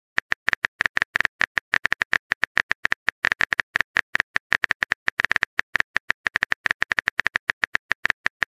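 Typing sound effect of a texting-story app's on-screen keyboard: rapid, uneven clicks, several a second, as a message is typed out letter by letter.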